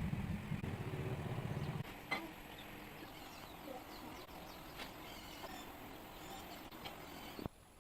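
A small motor running with a low, pulsing sound that stops abruptly about two seconds in. A faint background with scattered light clicks and bird calls follows.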